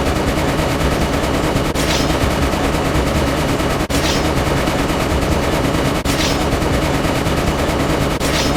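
Dense, rapid machine-gun fire as a loud sound effect. It plays as a short loop that cuts and restarts about every two seconds, four times here, each restart opening with a brief burst of hiss.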